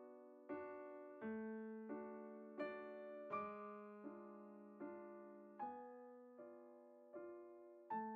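Slow, quiet solo piano music: single notes and chords struck about every three quarters of a second and left to ring out.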